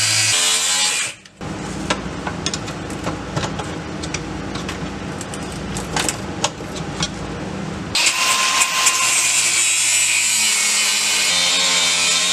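Grinder cutting through the OEM driveshaft center support carrier. A bright, high-pitched cutting sound cuts out about a second in. A lower, rougher grinding with many sharp ticks follows for several seconds, and the high-pitched cutting returns near the end.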